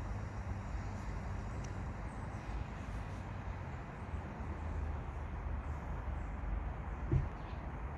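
Steady low background rumble, with one brief low thump about seven seconds in.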